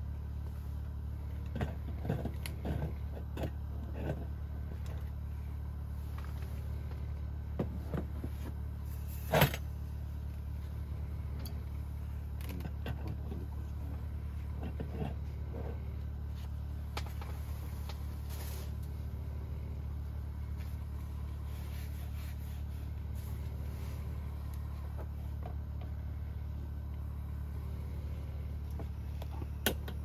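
Scattered knocks and clinks of a cooking pan and tableware being handled on a camp table, a cluster in the first few seconds and one louder knock about nine seconds in, over a steady low rumble.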